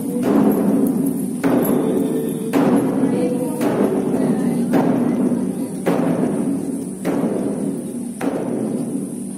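A large temple drum beaten in a slow, steady rhythm, about one stroke every second, eight strokes in all, over a steady drone of voices chanting.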